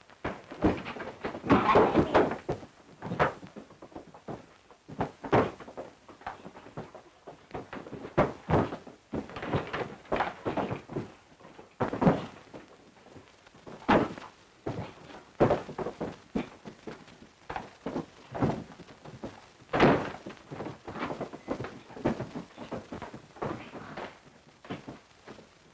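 A long run of irregular thuds, knocks and bangs, heaviest in a cluster about two seconds in, with further hard single knocks scattered through.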